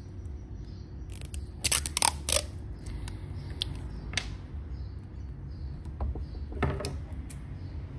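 Clear sticky tape being pulled off its roll and torn, a few short loud rasping rips about two seconds in, then a few lighter handling clicks, over a steady low hum.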